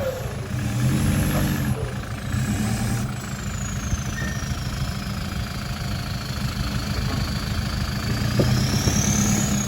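Toyota Hilux engine running as the truck drives in four-wheel drive, a steady low engine note with a thin high whine that slowly falls in pitch and then rises again.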